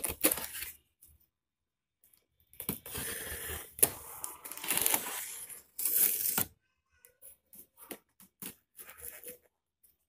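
Small utility knife slicing along the packing tape on a cardboard carton: dry cutting and tearing strokes, two longer ones in the middle, then a few light scratches near the end.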